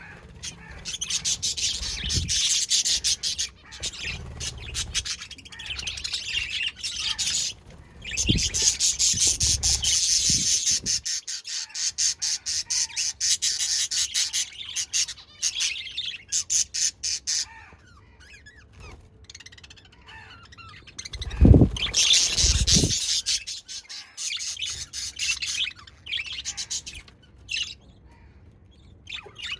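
Budgies chattering and chirping in a fast, busy warble, easing off for quieter stretches past the middle and near the end. A few short low thumps break in, the loudest two about two-thirds of the way through.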